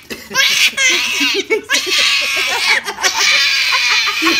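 A baby laughing and giggling in short bursts over small dogs barking and yapping at a high pitch.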